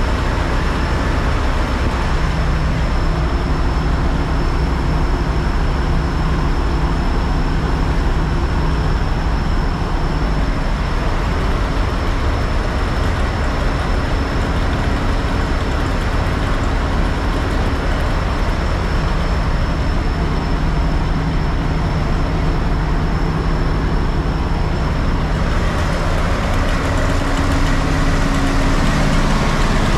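Fire truck engine running steadily, with a thin high whine that stops near the end.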